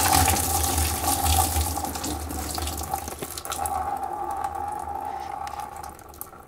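Engine coolant gushing out of a disconnected lower radiator hose into a drain pan, starting abruptly and slowly easing off as the hose empties.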